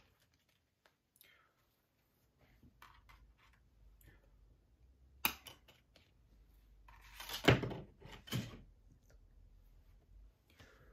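Disc cases and packaging being handled: a sharp click about five seconds in, then a louder rustle with two knocks about two to three seconds later, as cases are moved and set down.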